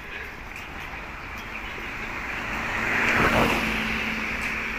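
A car passing by on the street: engine and tyre noise swells to a peak about three seconds in and then fades, over steady traffic hum.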